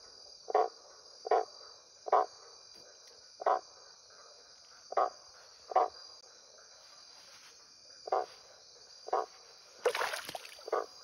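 Steady high-pitched night chorus of crickets and other insects. Over it, short low notes repeat irregularly about once a second, and a brief splash of water comes near the end.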